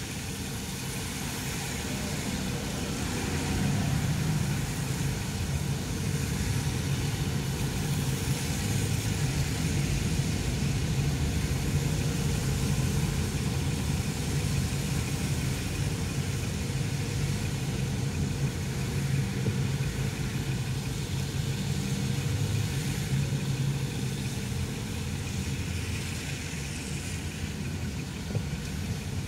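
A car's engine running with a steady low hum, heard from inside the cabin while driving slowly in traffic. Tyres hiss on the wet road over it, and the sound gets louder about four seconds in.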